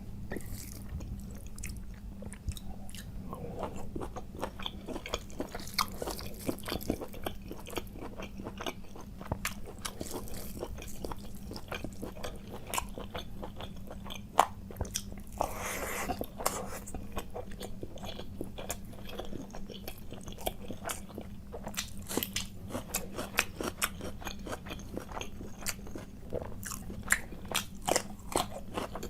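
Close-miked eating: a person chewing and biting food, with frequent crisp crunches and wet mouth clicks at an irregular pace.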